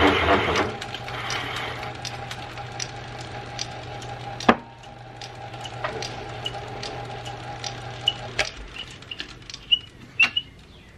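Small metal lathe turning a drill bit's Morse taper shank: a loud cutting noise fades within the first second, then the lathe runs with a steady hum and scattered ticks, with one sharp knock about halfway. The lathe stops after about eight seconds, and a few light metal clinks follow near the end.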